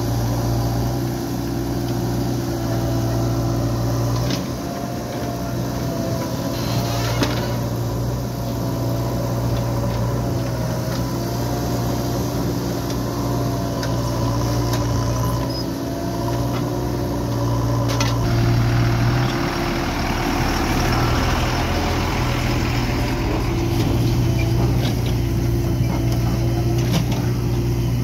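Backhoe loader's diesel engine running steadily, its pitch shifting slightly with load. A few sharp knocks stand out, and a stretch of rushing noise comes about two-thirds of the way through.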